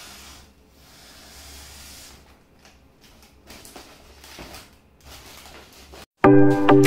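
Foil letter balloons rustling and crinkling as they are handled and unfolded. About six seconds in it cuts to loud electronic music with a steady beat.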